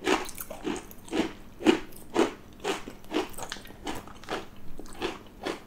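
Crunchy baked cheddar cheese crisps being chewed, a regular run of crisp crunches about two a second.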